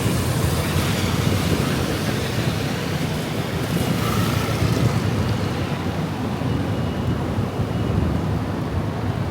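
Steady hiss of heavy rain falling, with city traffic running underneath.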